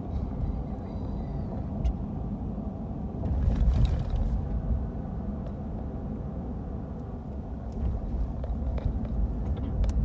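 Car driving, heard from inside the cabin: a steady low rumble of engine and tyres, with a louder rushing stretch lasting about a second, a little over three seconds in.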